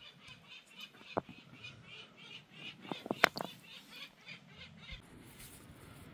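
Rapid high chirping, about four notes a second, stopping about five seconds in, with a few sharp knocks over it, the loudest just past three seconds in.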